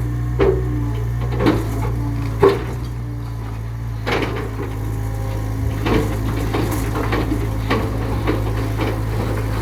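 Excavator engine running steadily, with intermittent clanks and knocks, about one a second early on and then more spread out.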